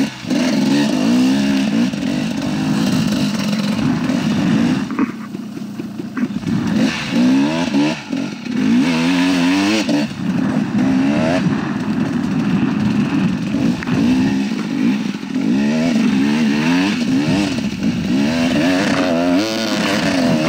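KTM 300 XC-W two-stroke dirt bike engine with an FMF exhaust, revving up and down under constant throttle changes as it is ridden. The revs drop off briefly about five seconds in and again about eight seconds in.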